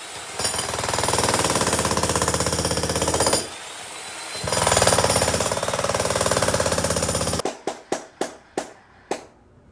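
Makita HM1810 electric jackhammer pounding into a concrete slab in two long runs with a pause of about a second between them. It stops about three-quarters of the way through, followed by a few sharp separate knocks.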